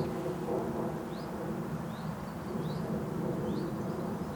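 Short, high, rising bird chirps repeating about once a second over a steady low rumble of outdoor background noise.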